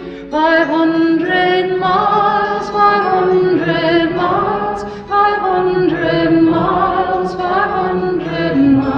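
Background music of voices singing held notes with vibrato, changing pitch every second or so.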